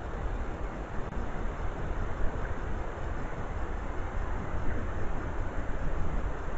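Steady hiss with a low rumble underneath, the background noise of a trail camera's built-in microphone at night, with no distinct animal sounds standing out.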